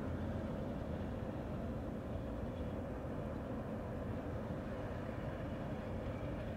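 Steady low rumble of distant industrial machinery and city traffic, with no distinct knocks or calls standing out.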